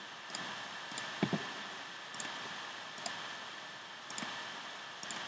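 Six or so sharp clicks of a computer pointing device's button as menu items are picked, spaced about a second apart over a steady hiss. A duller knock, the loudest sound, comes a little over a second in.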